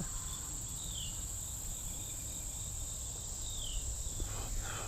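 Steady high-pitched drone of insects chorusing, with two short falling chirps, one about a second in and another around three and a half seconds in.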